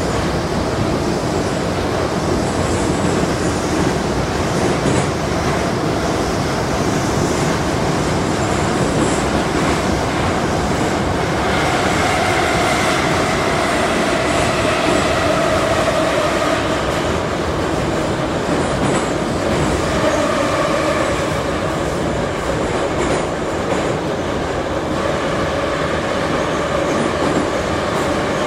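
81-717/714 metro train running at speed through a tunnel: a steady, loud rumble with some wheel clatter on the rails. A whine comes up near the middle and again about two-thirds of the way in.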